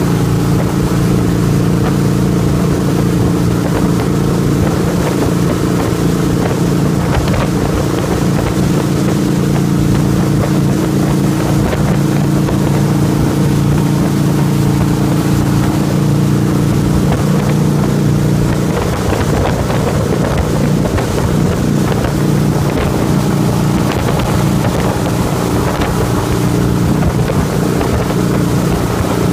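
Motorboat engine running steadily at speed while towing a tube, with the wake water rushing and wind buffeting the microphone.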